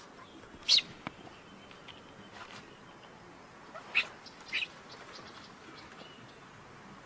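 Short, sharp, high-pitched animal chirps: one about a second in, then two close together around four seconds in, over a faint steady background.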